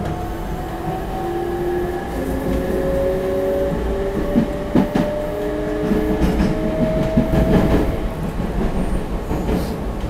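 Meitetsu 3700 series electric train heard from inside the passenger car: the GTO-VVVF traction inverter whines in several tones that climb in pitch in steps as the train accelerates, then stop about eight seconds in. Underneath are the steady rumble of the wheels and the clack of rail joints.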